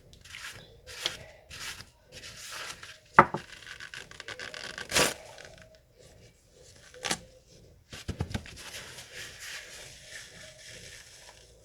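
Paper rubbing and crinkling as it wipes a small plastic pot's lid clean, in short scraping strokes with several sharp knocks of the pot being handled.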